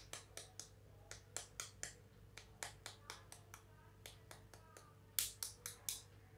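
A metal teaspoon tapping the shell of a 12-minute hard-boiled egg to crack it: a string of light, quick clicks, a few a second, with a louder run of taps about five seconds in.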